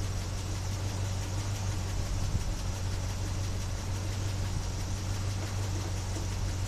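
1976 Chevy Blazer's engine idling steadily with an even low hum.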